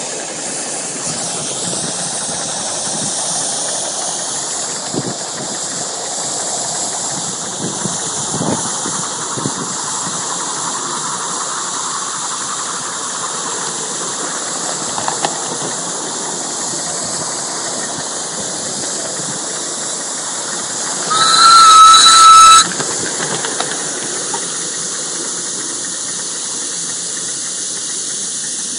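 5-inch gauge live-steam Atlantic locomotive hissing steam steadily as it runs, with a few faint knocks. About three-quarters of the way through comes a loud blast on its steam whistle, lasting about a second and a half.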